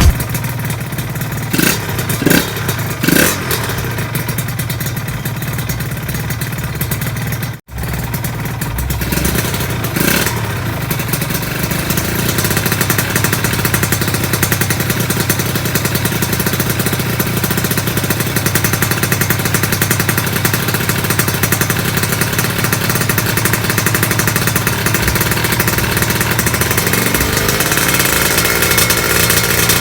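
Honda LS125 two-stroke single-cylinder engine, freshly rebuilt with a new connecting rod and 0.50 oversize piston, blipped several times in the first few seconds, then running steadily. There is a brief break about eight seconds in, and the revs rise near the end.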